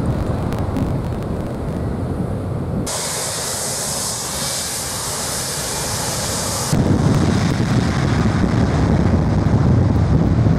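Jet airliner engines running at high power, blasting toward the spectators: a steady rumble with hiss that changes abruptly twice, turning hissier about three seconds in and then louder and deeper about seven seconds in.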